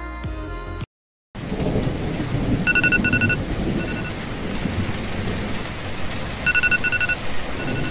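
Steady heavy rain with a low thunder rumble, and an electronic alarm beeping in short quick groups that repeat every few seconds over it.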